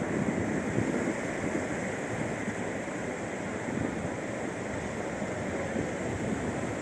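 Atlantic surf washing steadily onto a beach, with wind buffeting the microphone.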